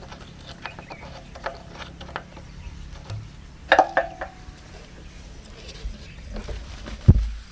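Plastic priming cap being unscrewed by hand from the pump casing of a petrol-engine irrigation water pump, with light rubbing and small clicks, to open the port for priming the pump with water. A brief louder clatter comes about four seconds in, and a dull thump near the end.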